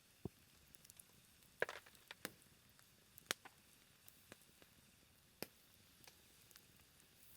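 Low campfire burning down to embers. Sparse, irregular sharp pops and crackles come a second or so apart over near silence.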